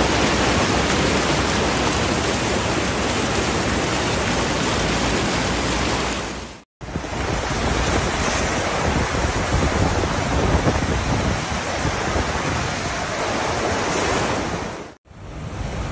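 Floodwater splashing and rushing as a vehicle drives through a flooded road, then, after a brief drop-out about seven seconds in, a muddy flash-flood torrent rushing, with wind on the microphone.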